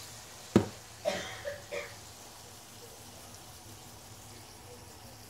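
A sharp knock about half a second in, then a few softer knocks and clinks, as kitchen things are handled; after that only a faint steady hiss.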